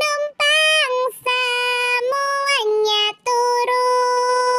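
A high, child-like singing voice holding long, steady notes one after another, with short breaks and small slides in pitch between them, in a children's song about a train.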